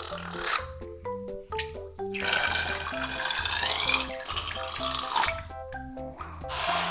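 Background music with plucked notes over a bass line. A loud hissing, water-like noise comes in briefly at the start and again from about two to four seconds in.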